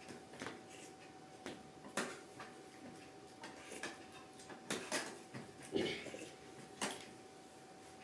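Irregular light clicks and taps, a few each second or so, the loudest a cluster near the middle and one shortly before the end, over a faint steady hum.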